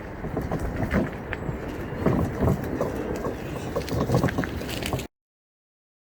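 Outdoor rumble like wind on the microphone, with irregular knocks and scrapes, then an abrupt cut to complete silence about five seconds in.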